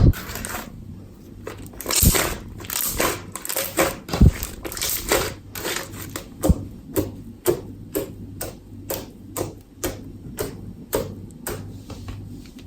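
Slime being worked by hand, giving a run of sharp sticky clicks and pops about two a second, with a denser stretch of crackling a couple of seconds in.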